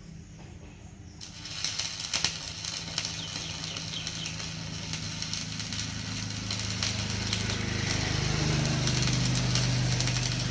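Stick welding arc struck about a second in and then crackling steadily, with many fine sputters. Under it runs a steady low hum that grows louder in the second half.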